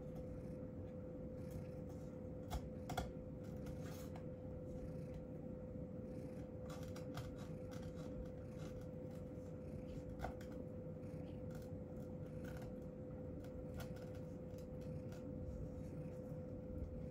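Quiet room tone: a faint steady hum with scattered light clicks and ticks.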